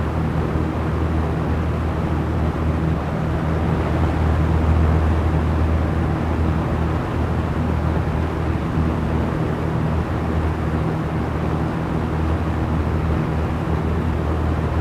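Small electric fan running steadily: a low motor hum under an even, airy whoosh that does not change.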